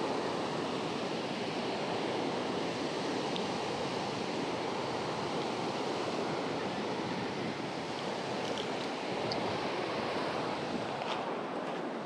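Surf breaking and washing onto a sandy beach: a steady, even rush of waves.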